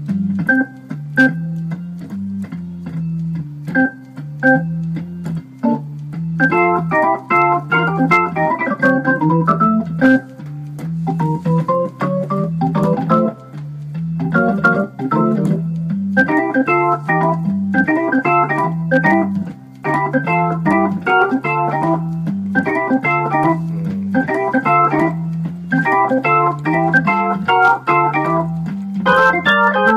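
Hammond XK-3c organ being played: a steady stepping bass line under bursts of quick chords and runs, with a rising run about eleven seconds in.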